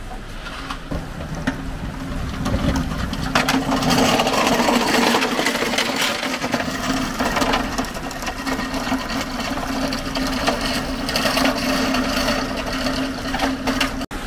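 Hand pallet truck loaded with stone slabs being pulled along an asphalt road, its wheels rolling with a steady rattle and a constant humming tone, starting about two seconds in.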